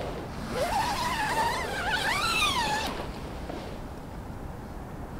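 Door zipper of a Backcountry Xanadu 2P backpacking tent being pulled shut from inside: a zipping sound lasting about two and a half seconds, its pitch rising and falling as the slider runs around the curved door. Steady low background noise continues after it stops.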